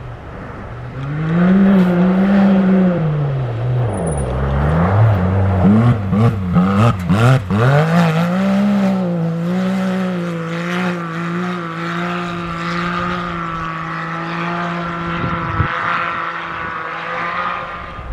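Rally-raid competition vehicle's engine revving hard, its pitch rising and falling through gear changes, with a run of quick rev swings in the middle, then holding a steady high rev before easing off near the end.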